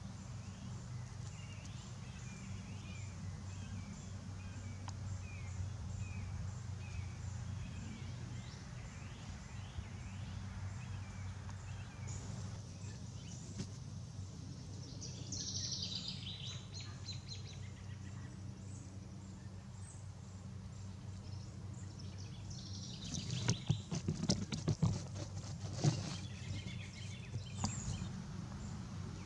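Outdoor ambience of small birds chirping over a steady low hum: a short chirp repeated in the first several seconds, a brighter call about halfway through, and a burst of sharp clicks, the loudest sound, near the end.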